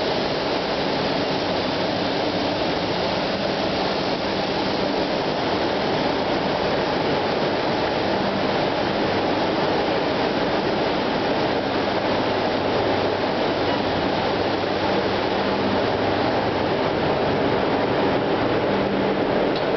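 Container ship's low-speed two-stroke diesel main engine, rated 51,420 kW at 102 rpm, running: steady, dense engine-room machinery noise with a faint low hum under it.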